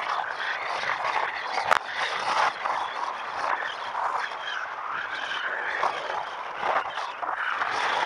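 Wind and road noise rushing past an action camera on a moving bike, unsteady and without a clear engine note. A single sharp click comes a little under two seconds in.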